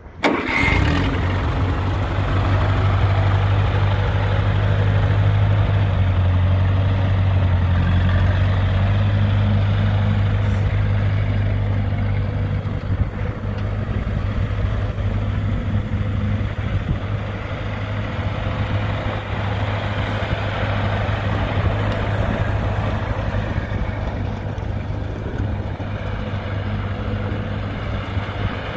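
1952 Ferguson TO-30 tractor's four-cylinder engine starts up at the very beginning, then runs steadily with a low, even note while the tractor is driven around.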